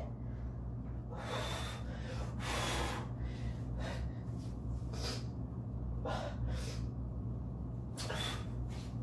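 A man breathing hard through his mouth, a series of about seven heavy gasping breaths roughly a second apart, as he tries to cool a mouth burning from very hot pepper sauce.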